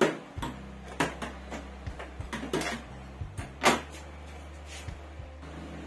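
Hands handling the parts of an opened AV receiver on a workbench: about half a dozen sharp clicks and knocks of boards and chassis parts being moved. The loudest knocks come right at the start and about three and a half seconds in.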